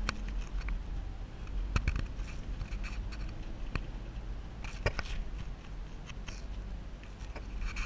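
Steady low drone of a small car's engine and road noise heard inside the cabin while driving, with occasional sharp clicks and rattles, the loudest about two seconds and five seconds in.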